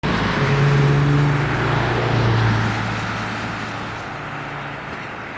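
A motor vehicle's engine running, loud at first and then fading away steadily.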